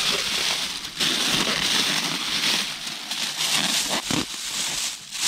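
Plastic bag rustling and crinkling as it is handled and worked over a wet foot, with a couple of short pauses.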